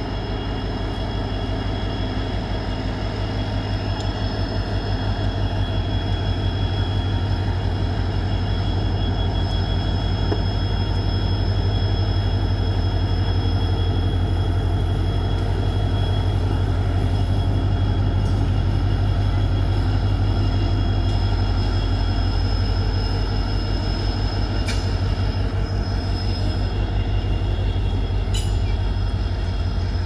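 Two diesel locomotives, a WDP4D leading a WDM3D, pulling a passenger train away under power. A deep, rapidly pulsing engine throb grows louder over the first ten seconds or so, then holds steady, with a thin high whine over it.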